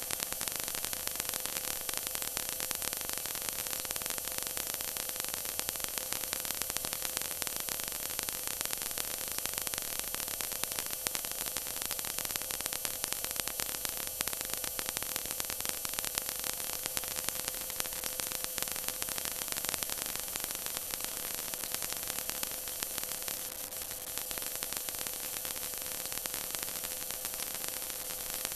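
Stock car running flat out inside the cockpit: engine and wind noise come through the onboard camera microphone as a steady harsh hiss, with a steady drone underneath as the engine holds constant revs.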